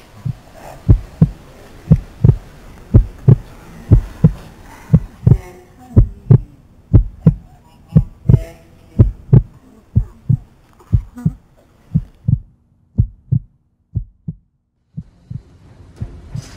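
Heartbeat sound effect: a low double thump about once a second, growing weaker and further apart until it stops, marking a faint. Faint street noise fades out under it in the first seconds.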